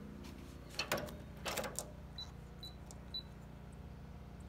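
Electronic keypad deadbolt on a front door beeping as its code is punched in: a few faint clicks, then three short high beeps about half a second apart.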